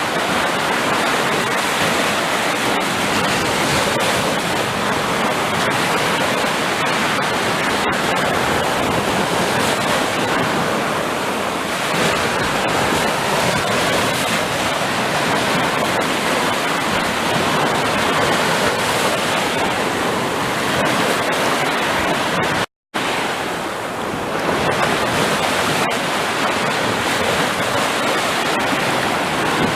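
Sea surf: a steady rush of waves washing in. It cuts to silence for a split second about three-quarters of the way through.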